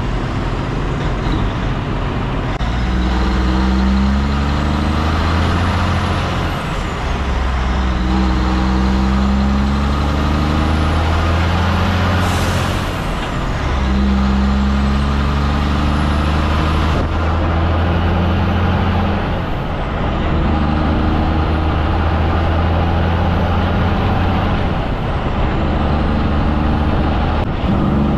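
A prime mover's diesel engine pulling a B-double away and working up through the gears. The engine note holds and then breaks off at each of several gear changes. Wind rushes over the microphone outside the cab, and there is a short hiss about twelve seconds in.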